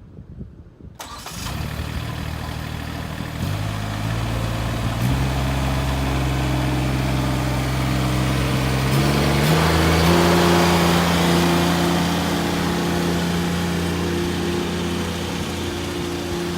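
Grasshopper 725DT6 zero-turn mower's diesel engine starting about a second in, then running, its speed stepped up three times as the throttle is raised before holding steady.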